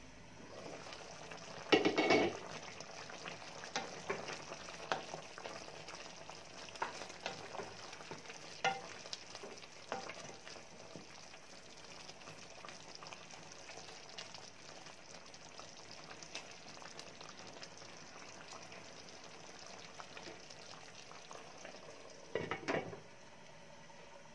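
Chicken in coconut milk simmering and sizzling in a pan. A glass pan lid is lifted off with a clatter about two seconds in. A wooden spoon then stirs and taps against the pan for several seconds, and the lid is set back on with another clatter near the end.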